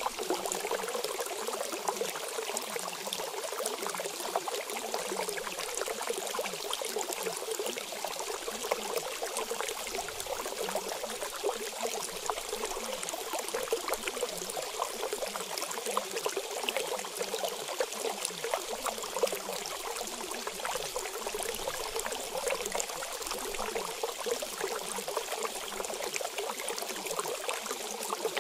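Steady, unbroken running-water noise, like a trickling stream.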